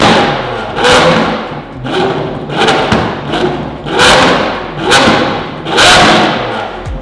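Lamborghini Aventador SVJ's V12 revved repeatedly while stationary, a sharp blip about once a second, each rising quickly and dropping away, with exhaust bangs and a flame from the exhaust.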